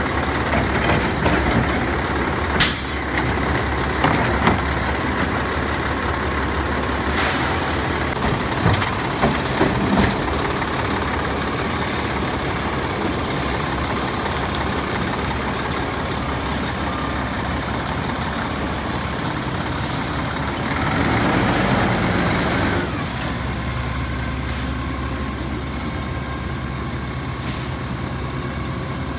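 Freightliner M2 garbage truck with a Labrie Automizer side-loader body: its diesel engine runs steadily as it finishes a cart dump and drives up to the next carts. Several clanks from the arm and cart come in the first ten seconds, and air brakes hiss a couple of times, about seven seconds in and again around twenty-two seconds.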